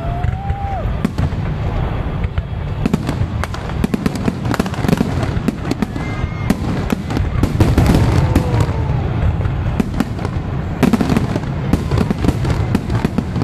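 Aerial fireworks display: a dense, rapid run of bangs and crackling from bursting shells over a continuous low rumble, heaviest in the middle and again near the end.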